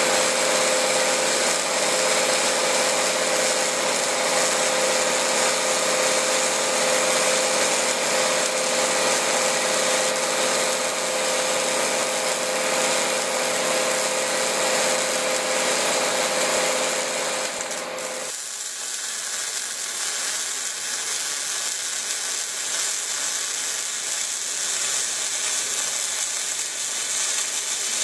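CO2-shielded hard-wire MIG welding arc from a Lincoln Power MIG 300 in short-circuit transfer, arc control at +2.0 for a crisp, stiff arc, laying a cover pass: steady, dense arc noise with a faint steady tone beneath it. About 18 seconds in the sound changes abruptly to a thinner, slightly quieter arc as another weld takes over.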